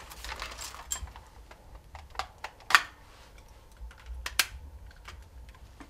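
A string of sharp plastic clicks and knocks from handling a handheld ear (tympanic) thermometer and its holder on a vital-signs monitor. The loudest click comes about halfway through and another strong one shortly after.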